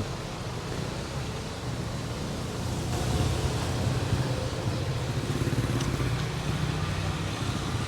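Street traffic: a motor vehicle's engine running close by, a steady low hum over road noise that grows a little louder about three seconds in.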